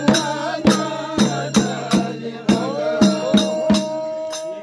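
Men singing a Holi folk song in chorus to a dhol drum beaten about twice a second, with hand claps on the beat; one voice holds a long note through the second half.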